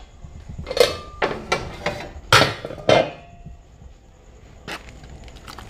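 Kitchen clatter: a quick run of sharp knocks and clinks of utensils and dishes, some ringing briefly, then quieter with one light knock near the end.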